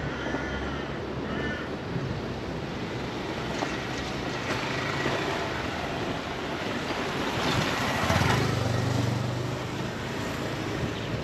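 Outdoor city ambience: a steady wash of traffic noise. A bird calls twice in the first two seconds, and a vehicle engine hum swells louder about eight seconds in.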